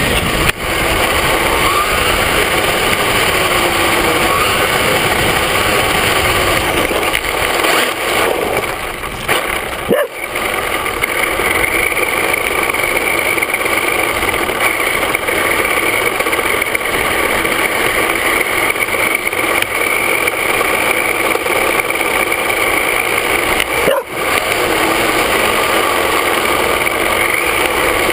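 Onboard sound of an HPI Mini Trophy RC truck with a Velineon VXL-3s brushless electric system driving fast: a steady loud whine from the motor and gears over tyre and road noise, heard from the truck itself. It eases off briefly about ten seconds in and again near the end, each time with a knock.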